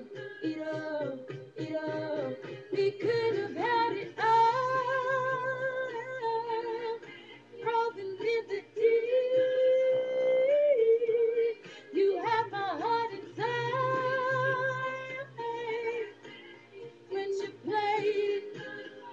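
A teenage girl singing, with quick runs and wavering held notes and one long held note about halfway through.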